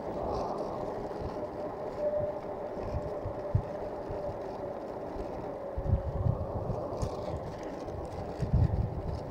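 Bicycle rolling along a paved road: a steady hum from the tyres and drivetrain, with wind buffeting the microphone in low thumps that get stronger in the second half.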